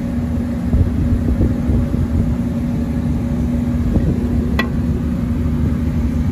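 Steady low hum and rumble of running machinery, holding one constant tone, with a single sharp click about four and a half seconds in.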